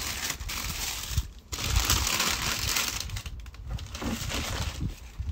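Shoebox wrapping paper and tissue paper rustling and crinkling as hands pull it back from around a pair of sneakers, in long stretches with a short pause about a second and a half in, fainter and choppier near the end.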